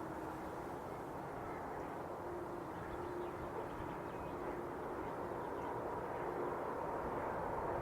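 Trackside field recording: a steady rumble and hiss with a faint hum that grows slowly louder as a train approaches in the distance.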